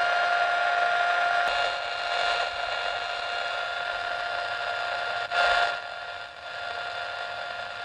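Hiss from an RX2 antenna noise bridge heard through a radio receiver, with a steady tone under it, while the bridge dial is turned to null the noise. The hiss falls away about a second and a half in, with a brief louder swell a little past the middle.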